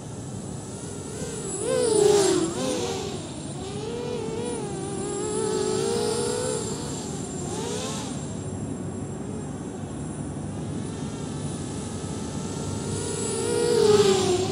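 A 250-size FPV racing quadcopter's brushless motors and propellers whining, the pitch wavering up and down with throttle. It swells louder as the quad passes close about two seconds in and again near the end.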